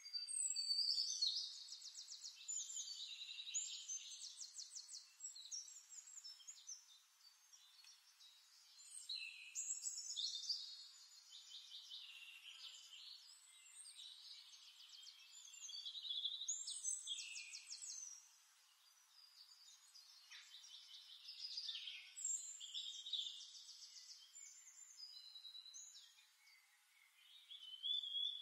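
A songbird singing long phrases of fast trills and whistled notes, one phrase every few seconds with short pauses between.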